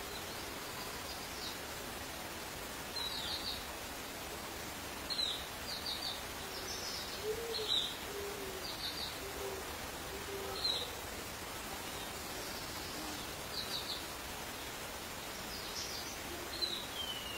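Animal calls over a steady hiss: short high chirps, often in quick groups of three or four, scattered throughout, with a run of short low hoots spaced about a second apart around the middle.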